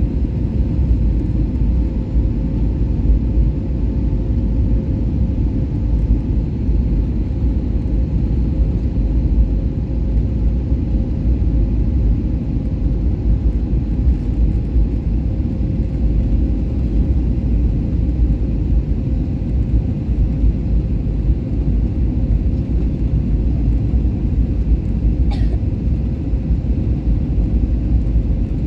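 Steady cabin noise inside an Airbus A320 descending on approach: engine and airflow rumble heavy in the low end, with a faint steady hum over it. A brief click about 25 seconds in.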